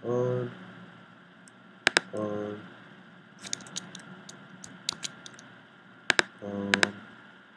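Computer mouse button clicks: a sharp double click about two seconds in and another about six seconds in, with lighter clicks between them, as on-screen toggle switches are switched and windows changed. Short low hums come in between the clicks.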